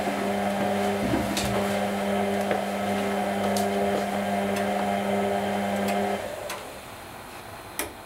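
Whirlpool Indiana 1400 front-loading washing machine tumbling its load: a steady motor hum with a few light knocks from the drum. The hum cuts off about six seconds in as the drum comes to rest.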